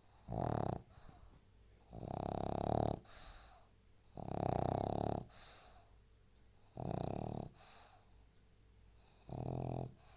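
Pug snoring in its sleep: five loud, rasping snores about every two seconds, each followed by a softer, hissing breath.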